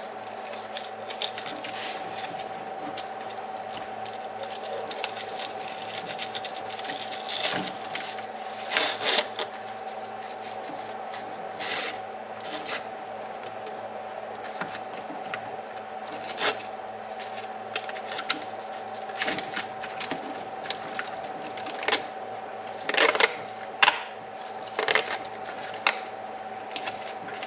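Scattered clicks, taps and scrapes of small plastic parts and wire connectors being handled on an RC truck, at irregular intervals over a steady faint hum.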